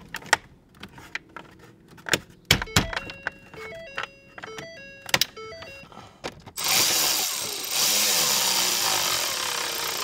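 Plastic dash trim clicking and knocking as it is pressed into place, with a short run of stepped electronic tones in the middle. Then a cordless drill/driver runs for about four seconds, driving screws into the dash panel, with a brief break partway through.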